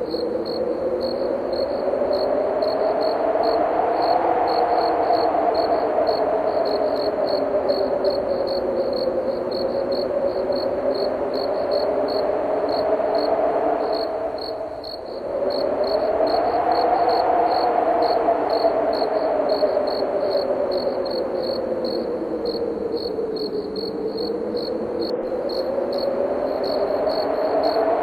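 Wind howling, slowly rising and falling in pitch and easing off briefly about halfway, over crickets chirping at a steady, even rhythm.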